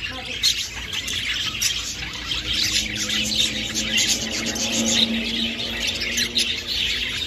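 Caged budgerigars chattering: a continuous run of rapid, overlapping high chirps and squawks.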